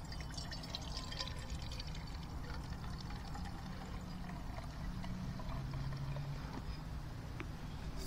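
A hot drink being poured into a large cup, the liquid running steadily for several seconds.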